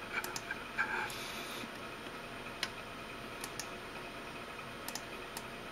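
Computer mouse clicking: several short, sharp clicks, some in quick pairs, over faint room hum.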